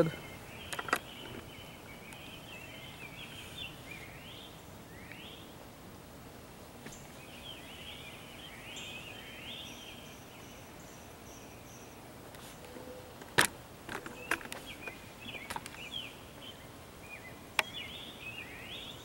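Birds chirping on and off in short, quick calls, with two sharp clicks in the second half.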